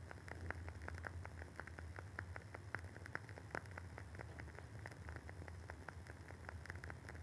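Wooden wick of a WoodWick candle crackling as it burns: many small, irregular pops and clicks, several a second, over a faint steady hum.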